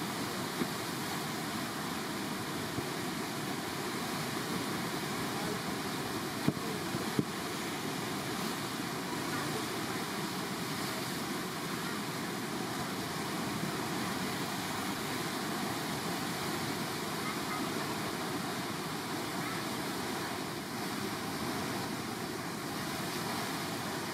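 Whitewater of a standing river wave rushing steadily, with a few short sharp knocks, the loudest about six and seven seconds in.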